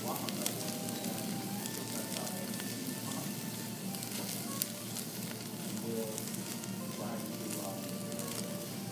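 Flaming sushi roll on a hot metal sizzle platter, sizzling steadily with many small pops and crackles, and one sharper pop about halfway through.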